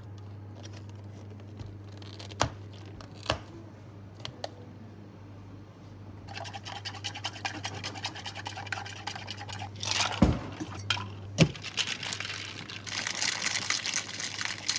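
Handling sounds from bubble tea making at a counter: cups and bottles knocked and set down, several sharp knocks with the two loudest a little after the middle, and stretches of scratchy scraping and rustling. A steady low hum runs underneath.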